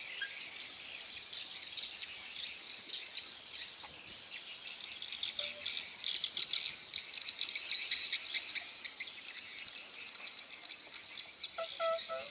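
Steady chorus of insects, a high, fast-pulsing chirr. A brief pitched call cuts in near the end.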